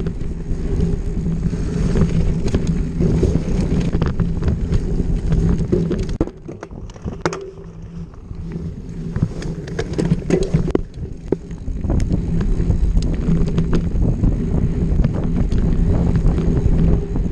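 Enduro motorcycle engine running on the trail, easing off for about two seconds around the middle before pulling again, with frequent sharp knocks and rattles from the rough ground.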